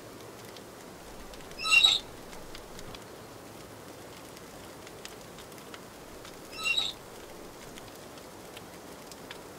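A bird gives a short call twice, about five seconds apart, over a faint steady crackle from the wood fire in the steam tractor's open boiler firebox.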